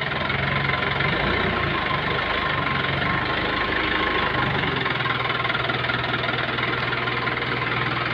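Komatsu forklift's engine running as it is driven; its pitch wavers in the first few seconds, then it settles to a steady idle.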